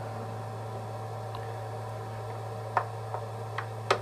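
A few light metallic clicks as a machined metal ring is test-fitted into a freshly cut bore in an aluminium plate, checking the hole isn't oversized. Four small ticks come in the last second and a half, over a steady low hum.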